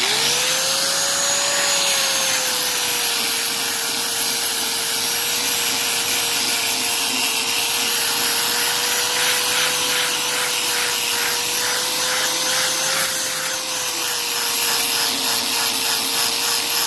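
Angle grinder with a flap disc spinning up and then running at a steady whine as it sands weathered deck-rail timber. About halfway through, a rhythmic rasping joins in.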